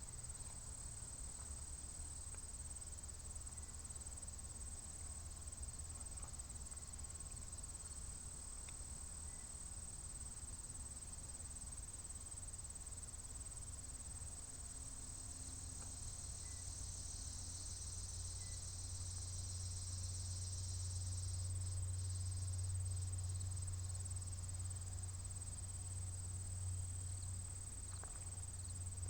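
Insects trilling, one steady high-pitched note, with a low rumble that swells in the second half. No siren is sounding.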